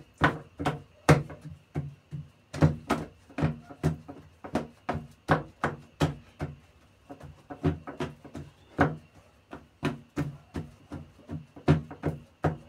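Hands pressing and tapping pizza dough flat into a metal baking tray, making a run of sharp, irregular knocks, two or three a second.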